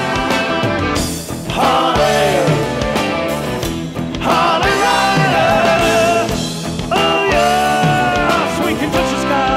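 Background song: a singer holding long, wavering notes over a steady beat.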